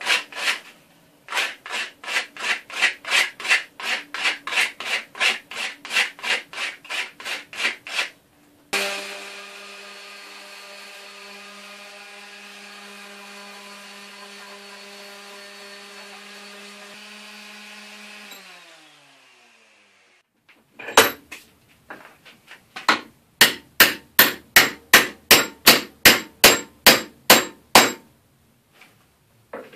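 Hand rasp strokes on a wooden hammer handle, about three a second for the first eight seconds. Then an electric random orbital sander runs steadily for about ten seconds and winds down. Another run of hand strokes on the wood follows near the end.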